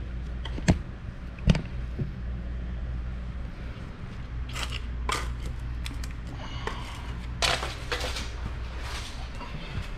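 Handling noise from a handheld GoPro being picked up and carried: a few sharp knocks in the first couple of seconds, then rustling, scuffing bursts about five and eight seconds in. A steady low hum runs underneath.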